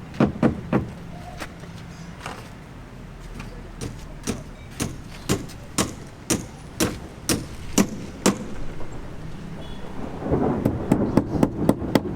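Hammer blows on a building site: a steady run of single strikes about two a second, with faster strikes near the end.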